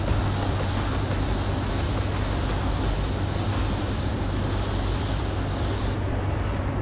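Gravity-feed spray gun spraying a coat of candy paint: a steady hiss of atomising air that cuts off about six seconds in when the trigger is released. A steady low hum runs underneath.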